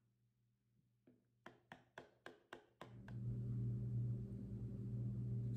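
Light quick taps of a small glitter shaker against a plastic water bottle as glitter is shaken in, about four taps a second. About three seconds in, a steady low hum starts suddenly and carries on, louder than the taps.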